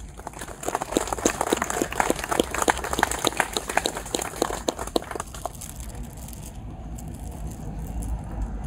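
Audience applauding: a few seconds of scattered hand-clapping that dies away about five seconds in, leaving a steady low background rumble.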